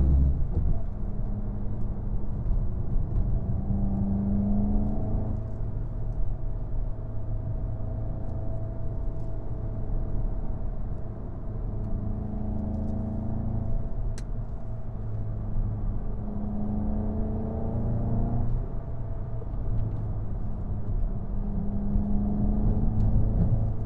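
A 2017 Volkswagen GTI's 2.0-litre turbocharged four-cylinder engine pulls up a winding road, heard from inside the cabin over steady road and tyre rumble. Its tone swells and eases every few seconds as the throttle is applied and lifted through the curves.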